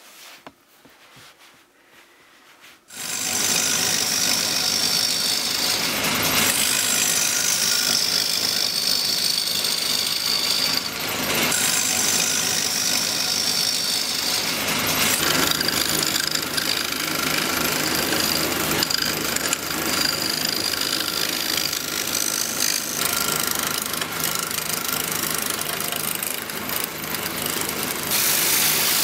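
A few seconds of quiet handling, then a wood lathe starts abruptly about three seconds in and runs steadily while a hand-held turning chisel cuts a wooden plate blank, a continuous scraping cut with a high hiss that swells and fades.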